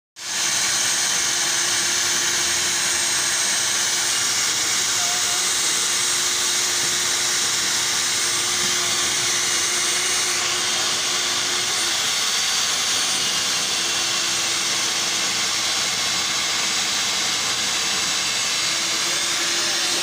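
Electric diamond core drilling machine on its stand running steadily while cutting into a concrete wall, a continuous high hiss with a low hum that breaks off about twelve seconds in and comes back.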